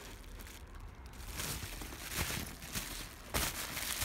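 Bubble wrap crinkling and rustling as it is handled, with a few sharp crackles, the loudest about three and a half seconds in.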